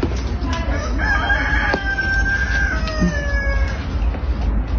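A rooster crowing once, starting about a second in: one long call that drops in pitch at the end, over a steady low rumble.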